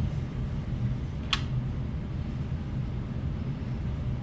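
Steady low room hum, with one sharp click about a second in.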